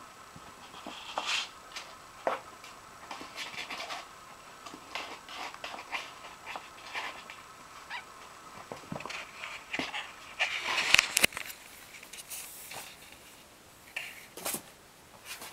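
Kittens scrambling about a cardboard box: irregular bursts of claws scratching and scuffing on the cardboard, loudest about eleven seconds in.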